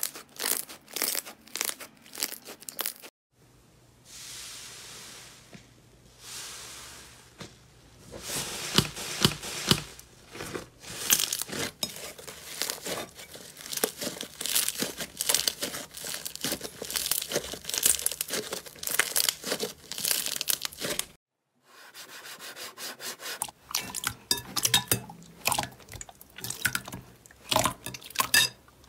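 Slime being pressed, poked and stretched by hand: dense crackling and crunchy clicking. It comes in several short clips with abrupt cuts, and there are two softer hissing swells early on.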